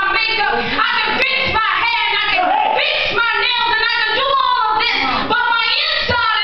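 A woman preaching into a microphone in a chanted, sing-song delivery, her voice carried over a sound system.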